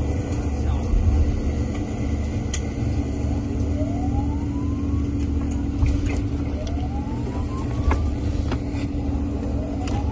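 Heavy rumble of a patrol boat's engine and the sea running alongside another hull, with a steady low drone. Over it a siren whoops upward three times, about every three seconds, and a few sharp knocks sound.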